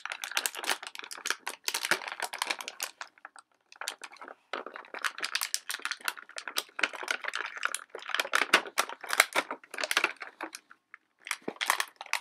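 Thin clear plastic bag crinkling and crackling in the hands as it is worked open, in dense runs with a brief pause about four seconds in and another near the end.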